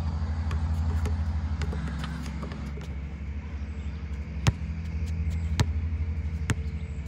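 A basketball bouncing on a hard outdoor court, three sharp knocks in the second half, over a steady low engine drone from a machine running nearby.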